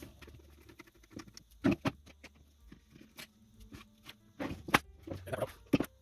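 Screwdriver working screws out of a computer power supply's sheet-metal case, then the metal cover being pulled apart and set down: scattered clicks and scrapes with a few sharper metal knocks, the loudest near the end.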